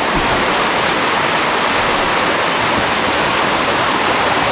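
Waterfall, its water rushing in a loud, steady hiss.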